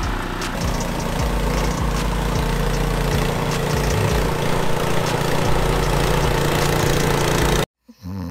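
Skid steer engine running steadily under work, cutting off suddenly near the end.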